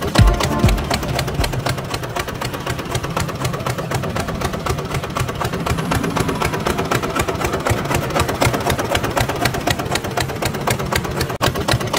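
A motor starting suddenly and running steadily with a fast, even clatter.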